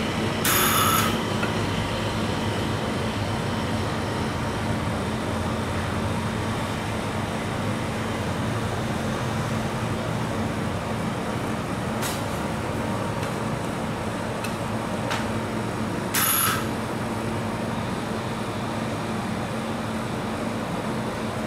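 Metal scraper scraping across the frozen plate of a rolled-ice-cream pan as the ice cream is rolled up. Two louder half-second scrapes come near the start and about two-thirds through, over a steady background drone.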